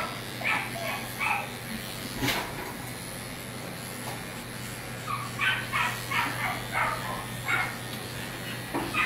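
A dog whining in short high-pitched bursts, a few in the first second and a half and a longer run from about five seconds in, over the steady hum of electric dog grooming clippers running.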